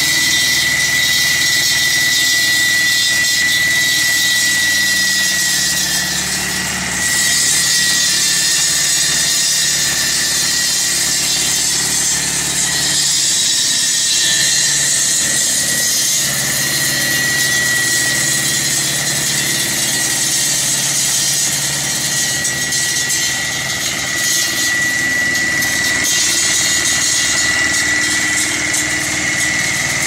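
Walk-behind concrete cutting saw running at full speed with its blade cutting into a concrete floor: a loud, steady engine drone under a high hissing grind and a steady high whine from the blade.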